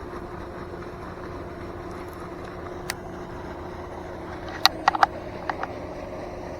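A steady mechanical hum with a few sharp clicks: one about three seconds in, and a quick cluster of four or five a little after four and a half seconds.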